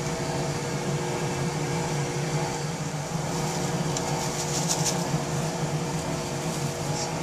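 A steady motor hum, with light crackling of plastic wrap being pulled off a sand mold about four to five seconds in.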